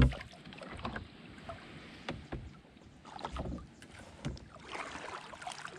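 Knocks and handling sounds on a canoe, opening with one sharp thump against the hull, followed by scattered lighter clicks and a couple of soft swishes as the canoe shifts on the water.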